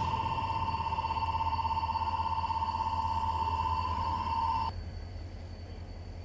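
Level-crossing road signal's warning alarm ringing with a steady high tone that cuts off suddenly about four and a half seconds in. Under it, the low steady running of a diesel locomotive's engine.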